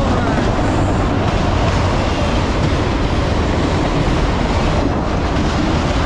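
Freight train's autorack cars rolling past close by: a steady rumble and clatter of steel wheels on the rails.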